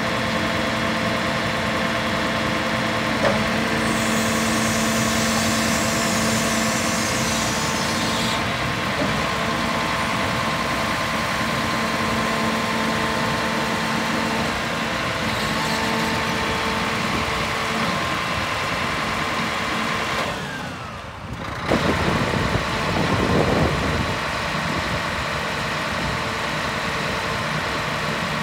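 Scania P114 truck's diesel engine idling steadily. A hiss sounds from about four to eight seconds in, and the sound gets louder and lower for a couple of seconds about three-quarters of the way through.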